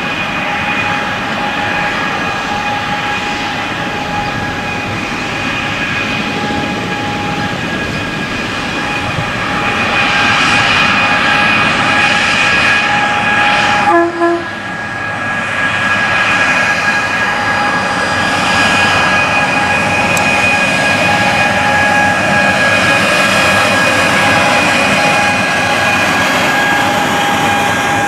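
Freight train rolling past, a steady rush of wheels and wagons with a constant high whine laid over it. The sound dips and changes briefly about halfway through.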